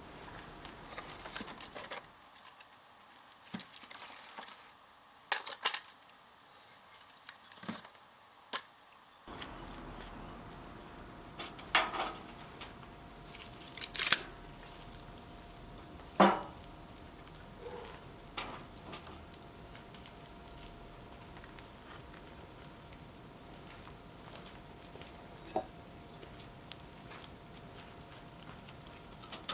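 Wood fire burning, with irregular crackles and sharp pops over a steady low hiss; three louder pops come close together in the middle.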